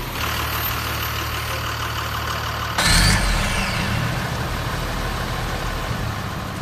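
Engine sound effect running steadily at idle, then surging louder about three seconds in with a rising whine, as if revving.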